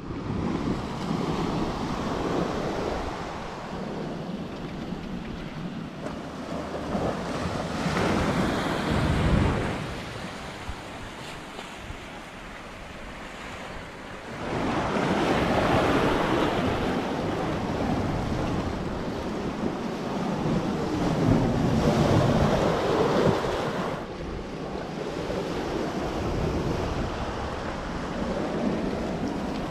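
Sea surf washing in and out in long surges that swell and fade, with wind buffeting the microphone.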